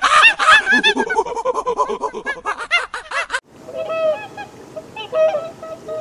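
A loud chorus of rapid, overlapping animal calls, many per second, that stops abruptly about three and a half seconds in. Then fainter scattered short calls from waterbirds such as gulls.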